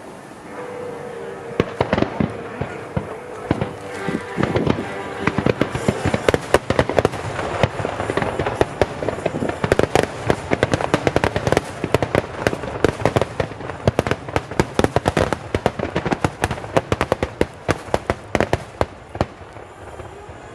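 Fireworks bursting in a rapid barrage: a dense run of sharp cracks and bangs, several a second, that starts about two seconds in and thins a little near the end.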